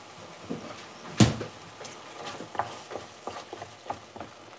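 A wooden spoon stirring curry sauce in an aluminium frying pan: a sharp knock about a second in, then a run of quick scrapes and taps, a few a second.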